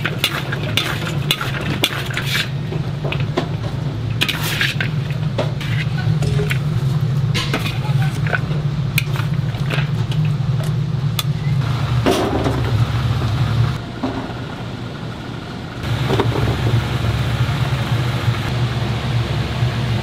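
Metal spatula and wire strainer scraping and clinking against a large wok as fried chicken pieces are tossed in sticky sauce, with the clinks busiest in the first half. A steady low hum runs underneath.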